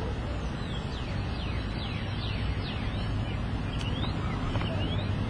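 Outdoor birds calling: a quick run of short falling whistles, then a few rising chirps near the end, over a steady background rush and low hum.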